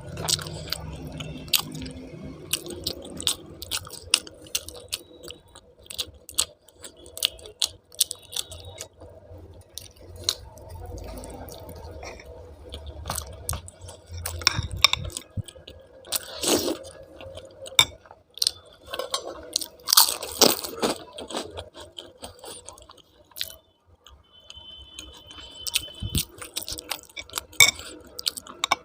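A person chewing and biting food close to the microphone: crunching and many short mouth clicks, with a few louder crunches about halfway through and again a little later.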